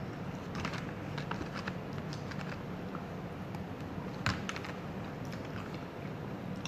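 Eating sounds: irregular small clicks and crackles of chewing and of utensils on food, with one sharper click about four seconds in, over a steady low hum.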